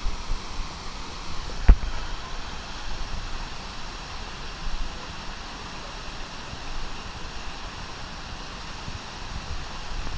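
Steady rush of water splashing out of water-slide runouts into a pool. A single sharp knock about two seconds in.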